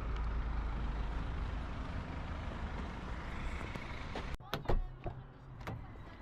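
Steady low rumble of a car driving, with road and engine noise. It cuts off abruptly a little over four seconds in, giving way to a quieter stretch with a few sharp clicks.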